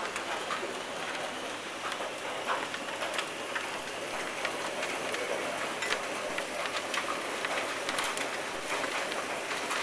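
Hailstorm: a dense, steady hiss of hail and rain on paving, café furniture and a canvas umbrella, scattered with many sharp ticks of single hailstones striking.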